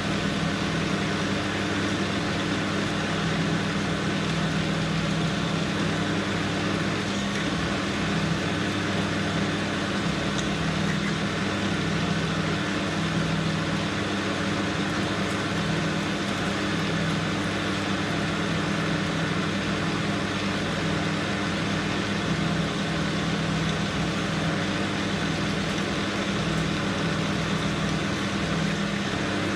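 AL960B metal lathe running steadily while drilling a 9/16-inch hole through a 4140 steel bar, with an even motor hum.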